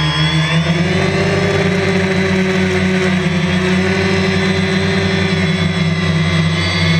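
Drone's electric motors and propellers whining steadily, recorded on board the drone. The pitch dips and comes back up near the start as the motors throttle down and up, and shifts slightly again near the end.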